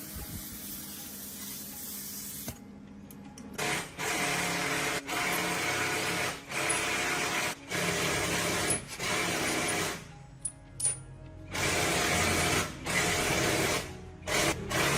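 A power tool run in repeated bursts of about a second each, some eight times with short pauses between, after a steady hiss at the start.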